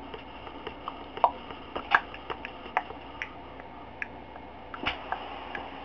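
A handful of faint, irregular clicks over a steady low hum and hiss of room noise.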